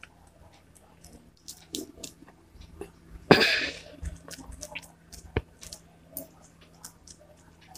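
A small piece of paint-covered bubble wrap dabbed and pressed onto paper: scattered soft, sticky taps and plastic crinkling, with one louder rustle lasting about half a second a little over three seconds in.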